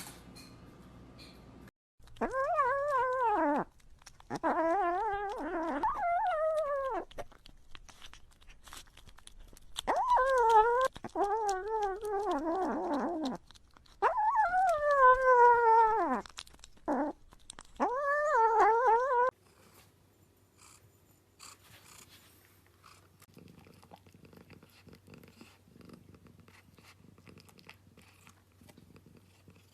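A pet makes a series of about seven long, wavering, whining calls, each lasting a second or two, with short gaps between them. After about nineteen seconds the calls stop and only faint clicking remains.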